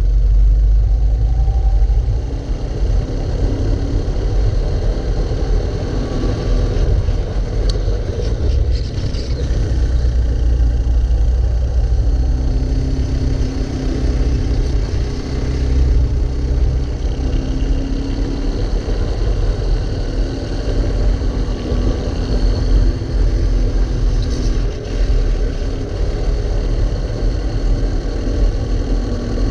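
Racing kart engine running hard at speed, heard from onboard the kart, its pitch rising and falling as the driver accelerates out of corners and lifts into them, over a heavy low rumble.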